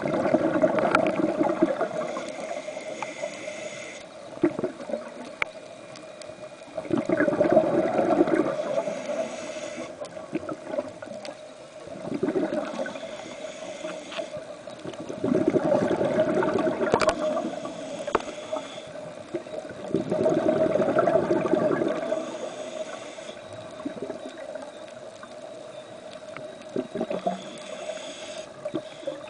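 Scuba diver breathing through a regulator underwater: a hissing inhale, then a louder bubbling exhale, repeating about every four to five seconds over a steady hum.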